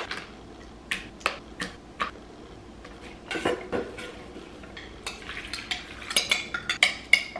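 Slow-cooker loading sounds: a few sharp taps, then sliced onion and bell pepper scraped off a wooden cutting board with a knife into the crock, and a sauce poured in from a glass measuring cup. Near the end comes a quick run of ringing clinks and clatters of utensils and crockery.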